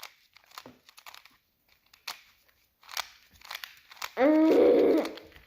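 Scattered clicks and crinkles from handling a plastic puzzle cube and its wrapping. Near the end a voice holds one steady wordless note for about a second.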